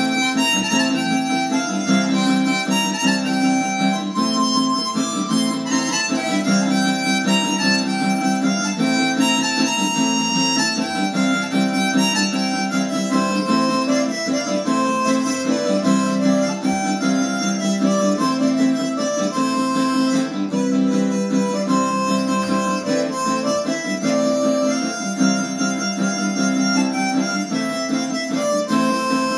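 Harmonica playing a melody, with an acoustic guitar strumming chords behind it.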